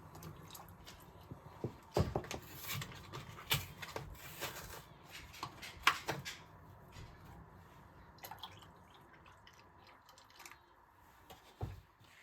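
Objects being handled: scattered light knocks and clicks, a few sharper ones about two and six seconds in, over a faint low hum that fades out partway through.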